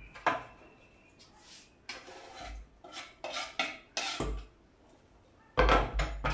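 A knife scraping and tapping on a wooden cutting board as chopped coriander is pushed off it: a run of short knocks and scrapes, with a louder clatter near the end.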